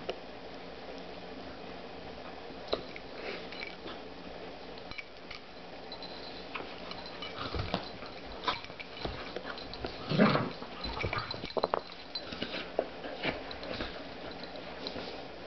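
Two dogs, an Australian Shepherd and a golden retriever puppy, play-fighting: wet mouthing and snapping jaws with scattered clicks and scuffles, busiest in the second half, with a short louder growl about ten seconds in.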